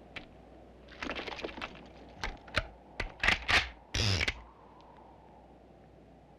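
Guns being reloaded: a run of sharp metallic clicks and clacks from cartridges and actions, the loudest about four seconds in.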